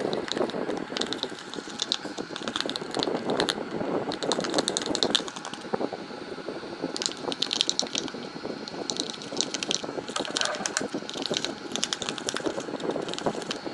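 Glue-based slime being stirred and worked in a container: rapid, sticky clicking and crackling in uneven bursts.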